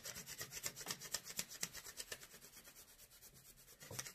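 Colored pencil rubbed quickly back and forth across paper laid over a leaf (frottage rubbing), a fast, even run of short strokes. The strokes grow fainter midway and pick up again near the end.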